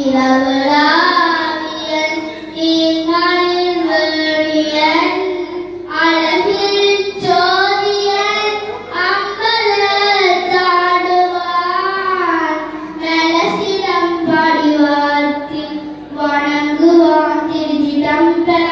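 A girl singing a devotional song solo, in long held notes that bend and glide, with short pauses between phrases.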